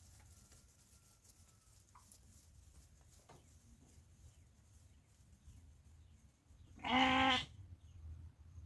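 A single wavering bleat from a farm animal, about half a second long, near the end. Before it there is only a faint low rumble.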